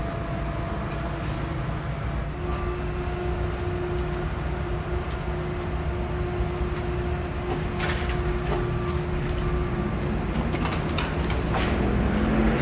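Steady low engine rumble of heavy vehicles, with a faint steady hum through the middle and a few light knocks near the end.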